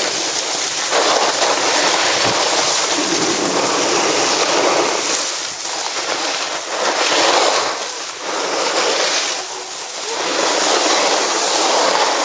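Snowboard edges scraping over packed snow: a loud rushing hiss that swells and eases every second or two as the board carves from turn to turn.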